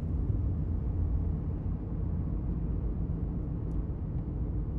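Steady low rumble of a car's engine and road noise, heard from inside the cabin of a moving car.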